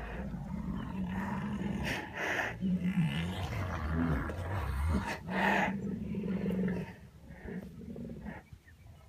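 White rhinoceroses making low, drawn-out calls as several jostle one another, with two louder, harsher outbursts about two and five seconds in; the calling dies down about seven seconds in.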